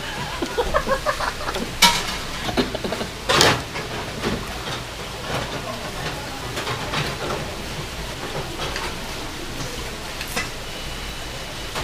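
Metal chopsticks clicking and scraping against dishes on a dining table, with a few sharper knocks about two and three and a half seconds in.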